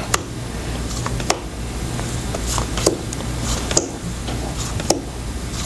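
Pokémon trading cards being flipped through by hand, card stock sliding and flicking, with several sharp snaps about a second apart over a steady low hum.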